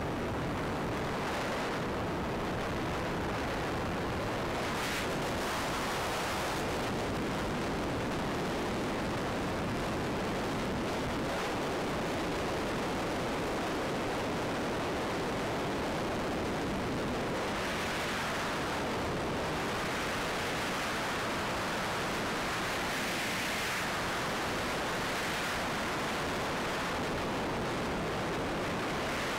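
Steady rushing wind noise from air flowing over the onboard camera of an RC plane in flight, swelling briefly twice in the second half as the plane banks.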